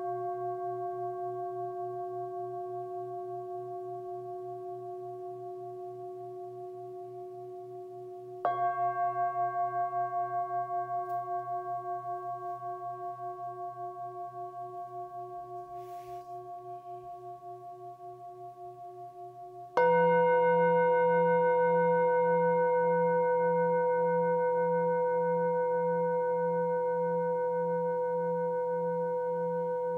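Metal singing bowls struck with a mallet twice, about eight seconds in and again about twenty seconds in. Each strike starts a new set of long ringing tones that pulse slowly as they fade, over bowls still ringing from earlier strikes. The second strike is the loudest.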